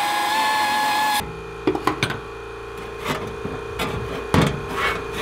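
A high-speed power tool whining steadily as it works the rusted steel floor at the spot welds, cutting off about a second in. Then sheet-metal knocks and scraping as a new stamped-steel floor pan is handled and set into place, over a steady low hum.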